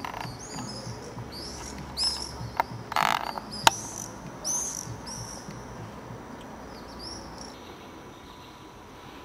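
A bird giving a run of short, high-pitched chirps, one or two a second, for about seven seconds. A brief rustle and two sharp clicks come around three seconds in.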